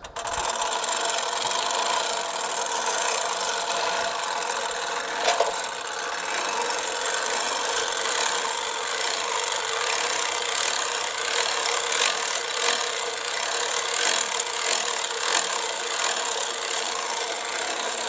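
Hand-crank winch on a sawmill trailer being wound steadily, drawing a synthetic rope to roll a log up the loading ramps. The winch makes a continuous rasping grind.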